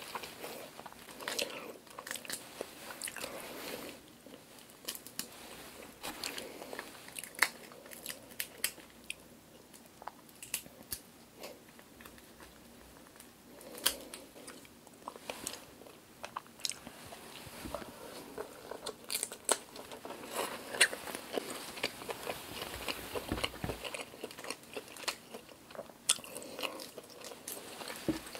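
Shells of whole cooked black tiger shrimp being cracked and peeled by hand: irregular sharp cracks, snaps and crackles of shell, with some chewing.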